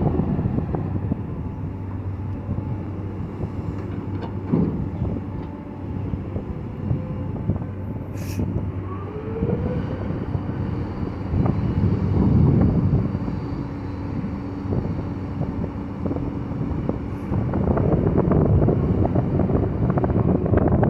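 Diesel engine of a heavy earthmoving machine running under varying load, swelling louder twice, with a sharp metallic clank about eight seconds in.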